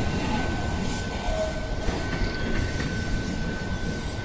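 Loaded freight wagons of a curtain-sided pulp train rolling past close by, a steady rumble and rattle of wheels on rail as the train starts to gain speed, with a thin steady high tone above it.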